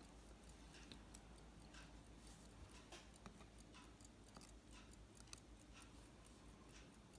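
Faint ticking of an 18-size Waltham Model 1879 pocket watch movement running on its newly replaced balance staff, the first run after the restaff.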